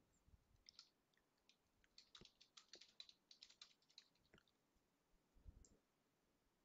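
Faint computer keyboard typing. A few scattered keystrokes, then a quick run of them in the middle.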